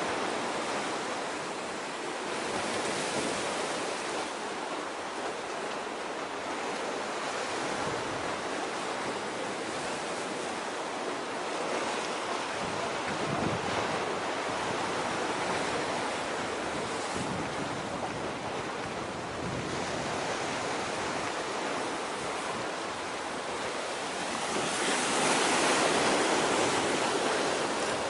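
Steady rushing of wind and sea waves, with wind buffeting the microphone, swelling louder about 25 seconds in.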